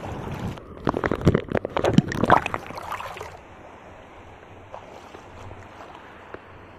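Shallow seawater splashing and sloshing in irregular strokes as someone wades through it, loudest for the first three seconds or so. After that, a quieter steady wash of water.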